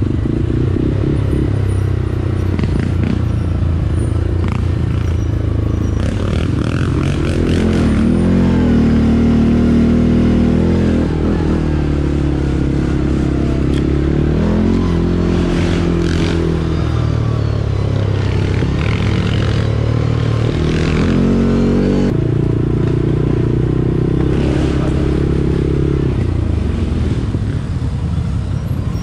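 ATV engine running under riding load, its speed rising and falling repeatedly as the throttle is worked, with scattered knocks and rattles over rough ground.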